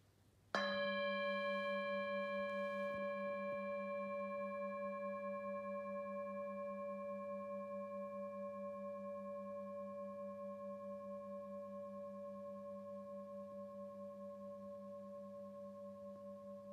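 A singing bowl struck once about half a second in, ringing on with a slow wobble as it fades.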